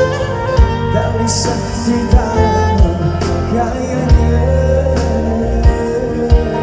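Live band music over a PA: a man singing into a microphone over keyboard, bass and a drum kit keeping a steady beat of about one hit every 0.7 seconds.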